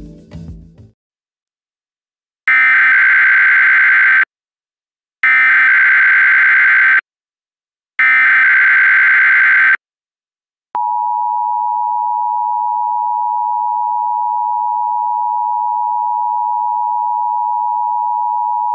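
Emergency Alert System test tones: three identical bursts of SAME header data, harsh warbling electronic squawks of just under two seconds each with short pauses between. About a second later comes the steady electronic attention tone, held for about eight seconds.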